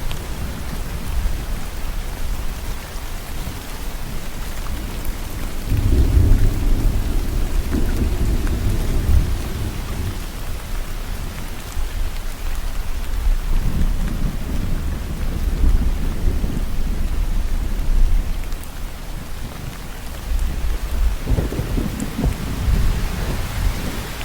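Steady rain with rolls of thunder: deep rumbles swell about six seconds in, again near the middle and again near the end, under an even hiss of rain.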